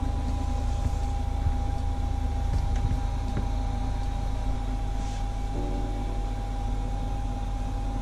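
Steady low machine hum with a thin, steady higher whine over it and a few faint small clicks: the background hum of the darkroom.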